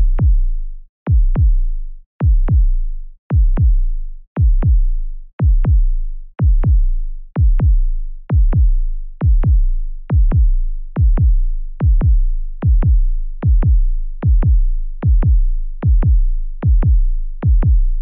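Synthesized suspense sound effect: deep booming double thumps, paired like a heartbeat, repeating about once a second and gradually quickening.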